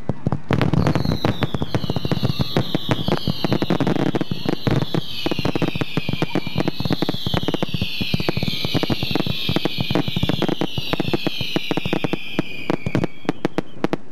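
Hand-fired fireworks mortars launching 3- to 6-inch shells in quick succession: dull muted launch thumps and dense crackling pops, with many overlapping high whistles falling in pitch from about a second in until near the end. Wind rumbles on the microphone.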